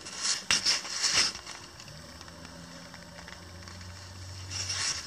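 A hand brushing and scraping loose dry soil and dead grass stalks: a few short rustles in the first second or so and again near the end. A faint low steady hum lies under the quieter middle.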